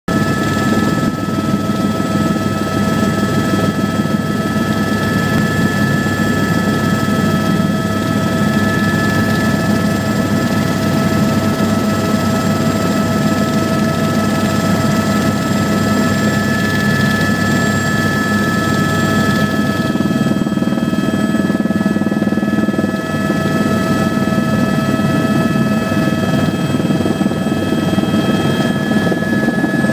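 Helicopter running, loud and steady, with constant high whining tones over the rotor noise.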